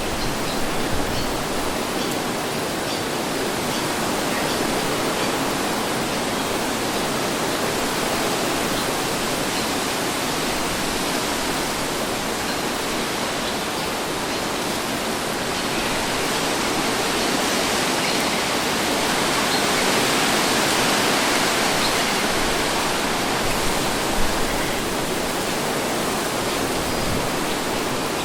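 Steady wind, an even rushing hiss that swells a little about two thirds of the way through.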